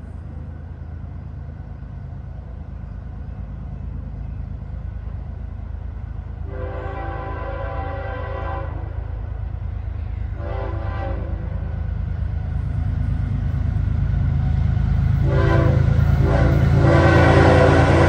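A CSX freight train's diesel locomotive approaches, its low engine rumble growing steadily louder. Its air horn, a chord of several notes, sounds a long blast, a short one, then a longer sounding near the end: the horn signal for a grade crossing.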